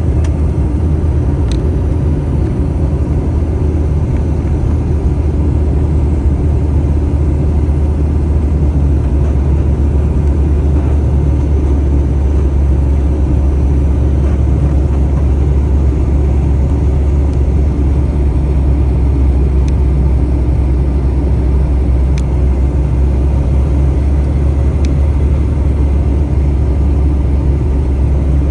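Steady low cabin drone of a Bombardier CRJ-900 airliner in flight, heard from a window seat over the wing: airflow and the rear-mounted turbofan engines, unchanging throughout, with a few faint ticks.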